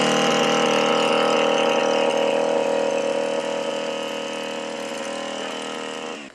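Petrol earth auger engine running at high revs as its bit drills a planting hole, holding steady and easing slightly. Near the end the throttle is released and the engine drops away.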